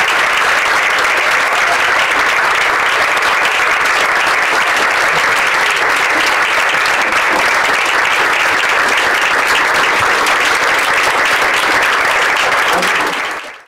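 Small audience applauding, a steady dense clatter of many hands clapping that fades out quickly near the end.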